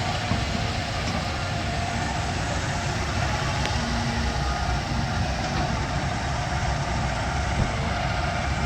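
John Deere 350G excavator's diesel engine running steadily under load as it digs.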